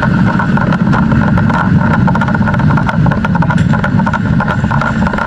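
Fire engine's engine running steadily, with scattered clicks and knocks over it.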